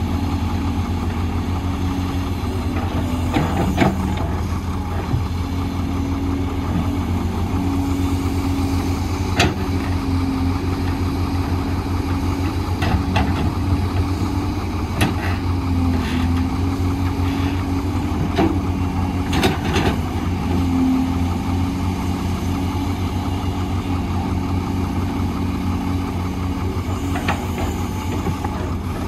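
Doosan DX300 excavator's diesel engine running steadily while it digs and loads soil, its hum shifting in pitch as the hydraulics take load. Short knocks and clunks of the bucket and rock come now and then, a few close together around the middle.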